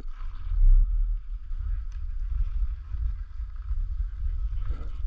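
Wind buffeting the microphone of a camera worn by a skier moving downhill, a low rumbling noise that surges and eases, over a faint hiss of skis sliding on packed snow.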